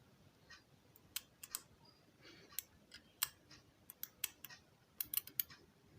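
A scattered run of small, sharp clicks and taps, irregularly spaced and bunched in quick clusters about a second and a half in and again near the end, from hands at work on the test setup.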